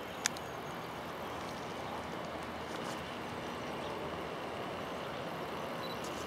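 Distant twin-engine jet airliner on the runway, its engines making a steady rushing noise. A short sharp click sounds just after the start.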